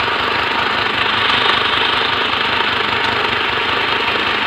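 Small electric mini portable sewing machine running steadily.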